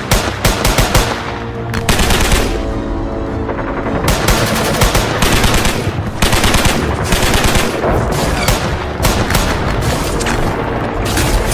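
Gunfire sound effects: bursts of rapid automatic and rifle fire, shots coming several a second, with background music under them.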